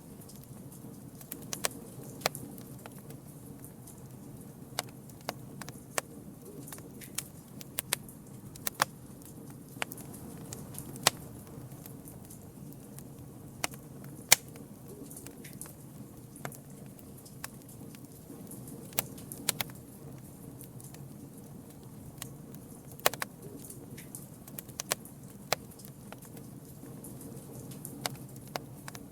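Campfire burning, with irregular sharp crackles and pops over a steady low rush of flame.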